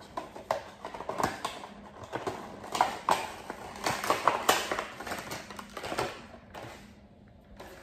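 A Funko Pop figure's cardboard box and plastic packaging being handled and opened: irregular clicks, taps and rustles that die down about six and a half seconds in.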